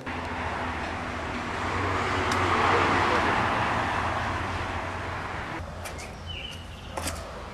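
Outdoor background noise: a rushing hiss that swells to its loudest about three seconds in and then fades, over a low steady hum. It turns quieter near the end, with a few light clicks and a short high chirp.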